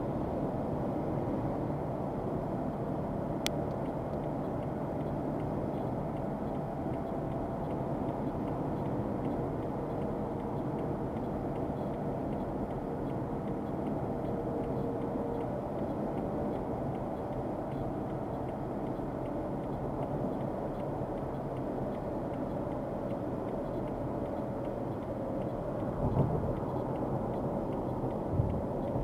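Steady road and engine noise inside a car cruising at highway speed, about 59 mph, with tyre rumble and a faint steady drone. Two short thumps come near the end.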